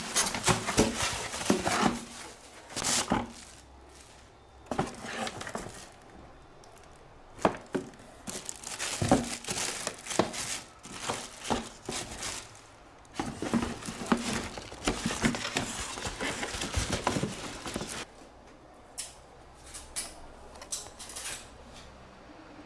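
Bubble wrap and clear plastic wrapping crinkling and rustling as an air fryer and its parts are pulled out of a cardboard box, in irregular bursts with short pauses, thinning out over the last few seconds.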